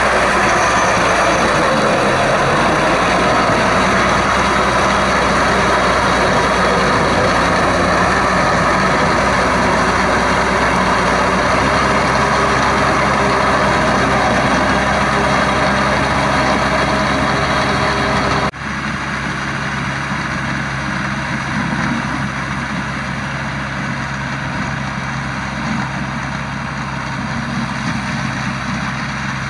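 Diesel farm tractor engine running steadily under load while it pulls a rotary tiller through a wet paddy. About two-thirds of the way through the sound drops suddenly and the engine carries on more quietly.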